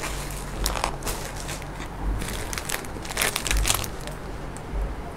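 Clear plastic packaging crinkling and crackling as packaged garments are picked up and handled, in irregular crackles that are densest about three seconds in.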